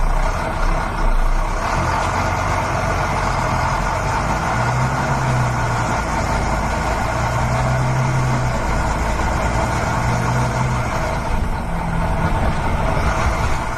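Heavy truck engine running steadily, its low note rising and falling several times.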